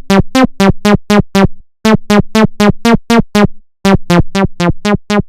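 Synthesizer playing a short ringtone-style melody of quick, evenly spaced notes: the same phrase of about seven notes three times, each followed by a short pause.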